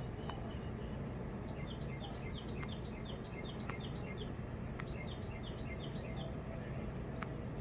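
Bird chirping in a quick run of short, high, paired notes, about three a second, over a steady low rumble, with a few sharp clicks.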